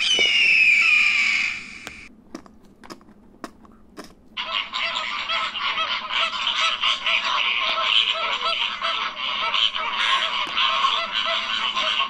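A loud, drawn-out scream of a bird of prey, falling slowly in pitch, lasting about two seconds. After a few faint clicks, a flock of greater flamingos starts honking and gabbling, many calls overlapping, from about four seconds in.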